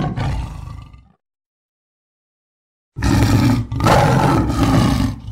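Animal roar sound effect, twice: the first dies away about a second in, and after a gap of dead silence a second, longer and rougher roar starts about three seconds in.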